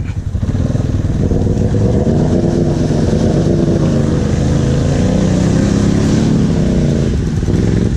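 ATV engine revving hard under load for about six seconds, its pitch rising and falling as it struggles, then easing off near the end. The attempt falls just short, which the rider puts down to the locker not engaging.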